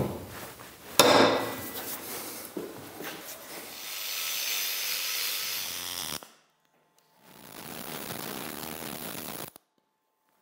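Metal being worked with shop tools: a sharp knock about a second in, then stretches of rasping, hissing noise that break off suddenly twice.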